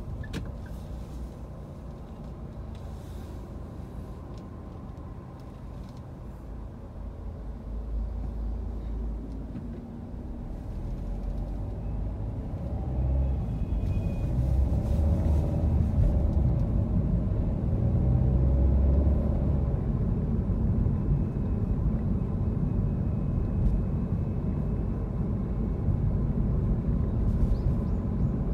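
Road and engine noise inside a moving car's cabin: a steady low rumble that grows louder about halfway through.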